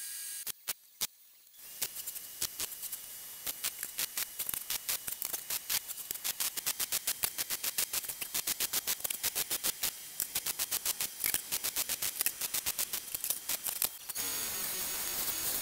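MIG welding: a rapid, uneven crackle of sharp pops, several a second. About a second and a half before the end it gives way to the steady hiss of a belt sander running.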